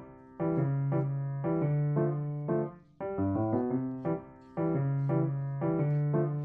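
Background piano music: a gentle melody of struck notes and chords in short phrases.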